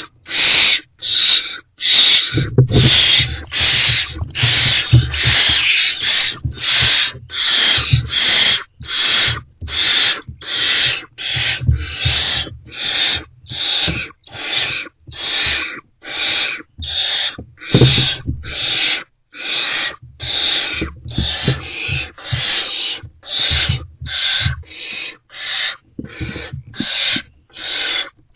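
Barn owl owlets giving loud, rasping hissing begging calls, the nestlings' 'snoring' for food, one after another a little more than once a second.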